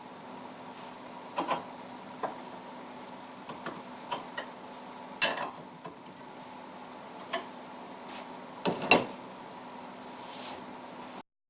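Light metal clicks and taps, about a dozen at irregular intervals, the loudest near the middle and a sharp pair near the end, over a steady faint hum; the sound cuts off abruptly shortly before the end.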